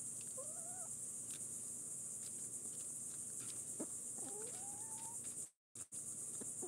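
Backyard hens giving two short, rising calls as they feed, over a steady high chirring of insects. The sound drops out briefly near the end.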